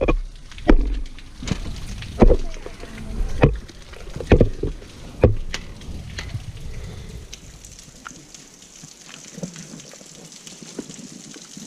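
Footsteps splashing and thudding through shallow water on a wet rocky trail, a step roughly every second for the first half, then a steady rush of running water.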